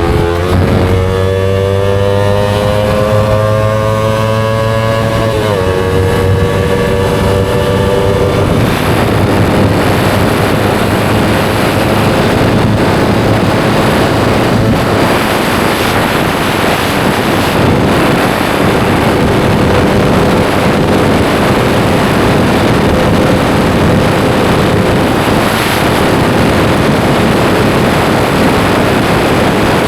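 Yamaha R25 parallel-twin engine through an SC Project aftermarket exhaust, accelerating while ridden: the engine note climbs, drops sharply at an upshift about five and a half seconds in, and climbs again. From about eight seconds in, steady wind rush on the microphone at speed covers most of the engine sound.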